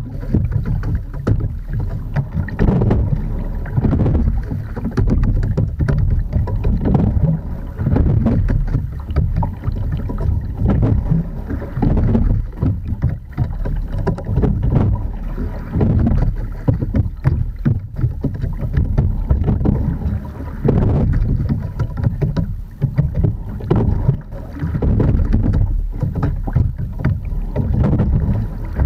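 Water rushing and splashing along the hull of an Edon TS515 sculling boat as it is rowed steadily, surging with each stroke, with wind buffeting the microphone.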